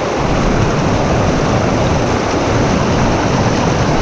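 Mountain stream rushing and splashing over rocks close by, a loud, steady rush of white water.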